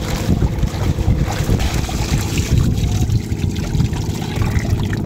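Boat engine running steadily with a low rumble, mixed with wind buffeting the microphone.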